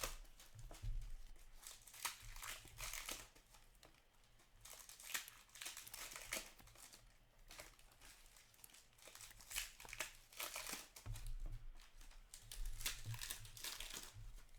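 Hockey card packs being handled: wrappers crinkling and tearing while cards are shuffled, in many short irregular rustles.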